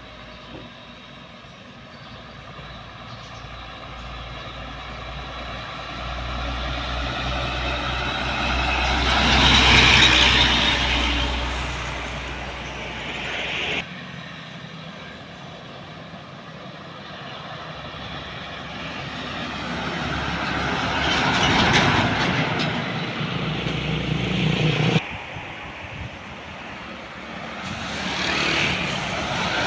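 Heavy trucks passing on a road one after another, three in turn, each engine growing louder to a peak and then fading; the sound breaks off suddenly twice between them.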